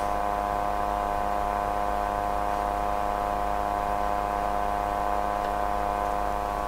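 HP 9830A desktop calculator's cooling fan running under mains power: a steady hum, a bit noisy, made of several even tones that hold unchanged.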